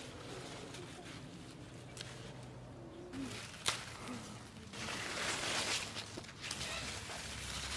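Rustling of cucumber leaves and vines as gloved hands push through them, loudest about five seconds in, with a sharp click a little before that.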